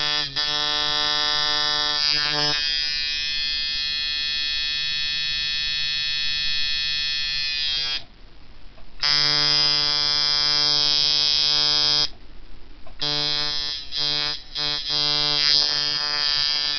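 Rebuilt Ciferri coil tattoo machine with six-layer coils, buzzing unloaded on 4.5 volts with a medium-to-long throw: a steady pitched buzz with many overtones, quite punchy. A little past the middle it cuts out twice for about a second each, then stutters on and off briefly before running steady again.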